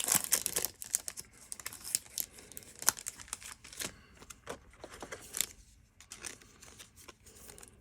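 Thin plastic crinkling and rustling in quick, irregular snaps as a trading card is slid into a plastic card sleeve. It is busiest in the first few seconds and thins out near the end.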